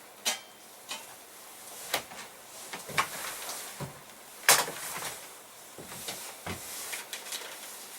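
Camping cook set being handled and packed into a mesh bag: a handful of sharp knocks and clinks at irregular intervals, the loudest about halfway through, over light rustling.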